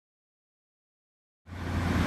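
Silence, then about a second and a half in the sound cuts in: a diesel multiple unit standing with its underfloor diesel engine running, a steady low hum under a hiss.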